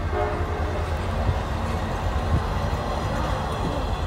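CSX passenger cars rolling past on the rails: a steady low rumble, with two brief knocks about a second apart near the middle.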